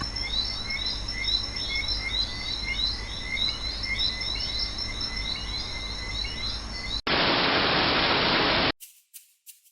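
A chorus of frogs calling in rapid, repeated chirps. About seven seconds in it cuts to a loud, steady hiss lasting under two seconds, then a few sharp clicks.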